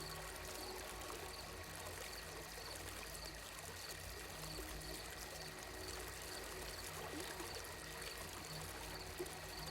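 Ambient sleep soundscape of gently running water, a steady trickling stream, over a faint low hum and faint regular high chirps.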